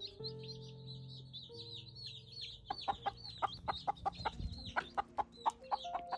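Baby chicks peeping continuously in high, falling cheeps. From about three seconds in, a hen clucks in a quick run of short, loud clucks.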